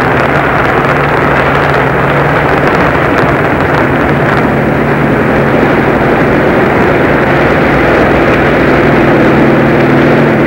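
Helicopter engine and rotors running, loud and steady, with a steady low hum under the noise.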